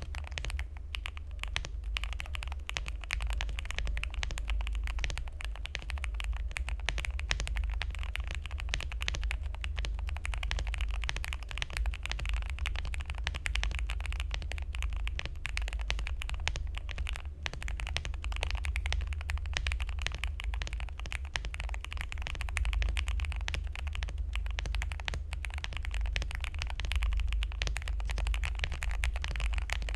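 Continuous fast typing on a Zuoya GMK67 mechanical keyboard with lubed Gateron Milky Yellow linear switches, tape-modded and filled with polyfill: a dense, muted clatter of keystrokes. A steady low rumble runs underneath.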